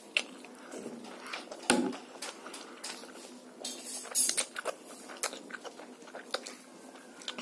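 A child slurping and chewing spicy noodles close to the microphone: hissy slurps and many small mouth clicks, with a sharp knock about two seconds in.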